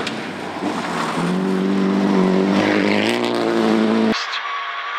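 Nissan Silvia S15 rally car at full throttle on a gravel stage, its engine note climbing as it approaches and stepping in pitch a couple of times as it passes. The sound cuts off suddenly about four seconds in, giving way to the quieter engine heard inside the car.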